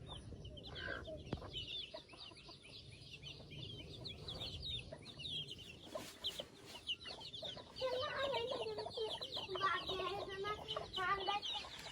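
A flock of young chicks peeping continuously, many short high falling chirps overlapping. Lower pitched calls join about eight seconds in.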